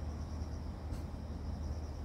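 A steady low hum, with a faint high-pitched whine above it and a faint click about a second in.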